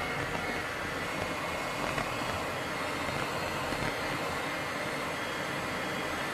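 Steady rushing noise of an F-16 fighter jet rolling along the runway, heard from the cockpit: jet engine and airflow blended into an even roar with no distinct tones, holding level throughout.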